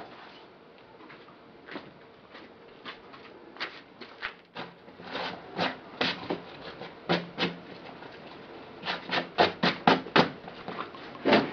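A black shoe being scrubbed by hand, a run of short rubbing strokes that get faster and louder from about five seconds in, reaching several strokes a second near the end.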